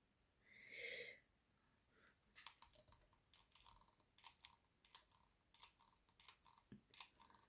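Near silence, broken by a short soft sound about a second in, then faint, irregular small clicks and crackles of handling.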